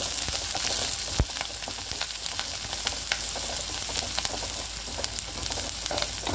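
Chopped onion with curry leaves and a dried red chilli sizzling in hot oil, stirred with a wooden spatula. A steady hiss with scattered ticks, and one sharp knock about a second in.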